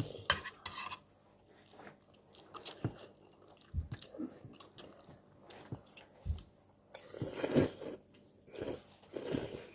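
Eating instant ramyeon noodles: chewing and biting, with sharp clicks of utensils against a bowl, and two louder noisy swells in the second half.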